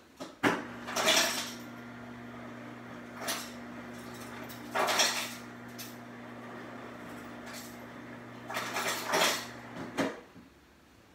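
Refrigerator door ice dispenser running with a steady motor hum for most of ten seconds, ice cubes clattering into a cup in several bursts; the hum stops with a click near the end.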